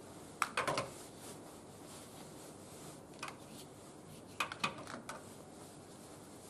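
Wood fire burning in a barbecue grill, giving a few sharp crackles and pops in short clusters: one about half a second in, one around three seconds and several between four and five seconds.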